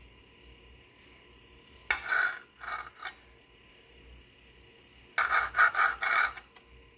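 A kitchen knife sawing slices off a hot dog, the blade rasping against the board beneath in two bursts of short strokes, about two seconds in and again about five seconds in.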